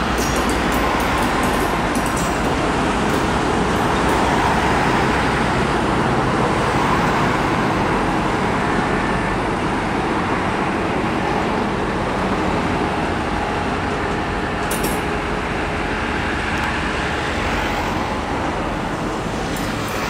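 Diesel engine of a class 2143 diesel-hydraulic locomotive running as the locomotive rolls slowly past, a steady engine noise that is loudest a few seconds in.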